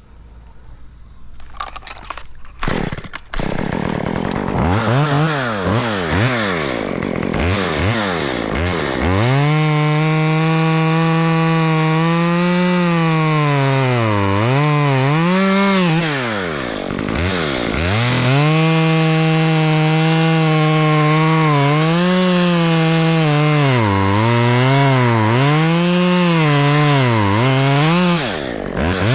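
Two-stroke chainsaw: a few sharp clatters, then the engine starts about three seconds in and is revved up and down. From about nine seconds it runs at high revs with its pitch dipping several times, typical of the saw being pulled down under cutting load in oak wood.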